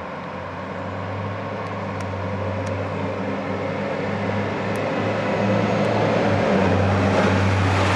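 A steady low mechanical hum with a noisy haze, growing gradually louder, with a few faint small clicks.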